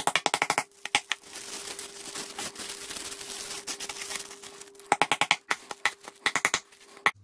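Rapid runs of light hammer taps, about a dozen a second, crushing Seachem Matrix biomedia lumps inside a plastic zip bag on a plastic cutting board. The first run is at the start and a second comes about five seconds in. Between the runs the plastic bag crinkles as the pieces are pressed by hand. A faint steady hum sits underneath.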